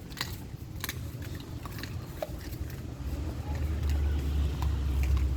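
Dogs chewing and crunching raw chicken, with scattered sharp crunches. A low rumble comes in about three seconds in.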